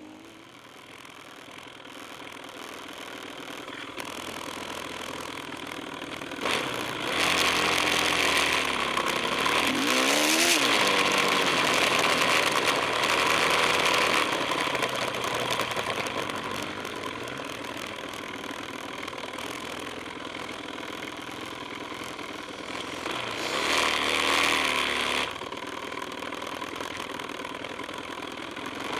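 Suzuki LT-Z250 quad's single-cylinder four-stroke engine revving up and down while being ridden, with two louder stretches under throttle: one about a quarter of the way in, and a shorter one past the three-quarter mark.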